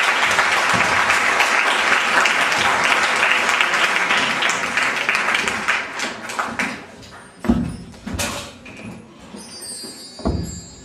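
Audience applauding, the clapping dying away after about six seconds, then two dull thumps.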